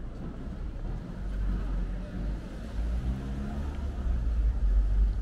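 Street noise: a steady low rumble that swells near the end, with people's voices heard briefly about three seconds in.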